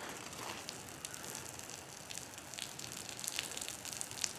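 Hose spray nozzle on a pressurized water tank shooting a long stream of water: a faint, steady hiss with scattered light ticks of drops landing.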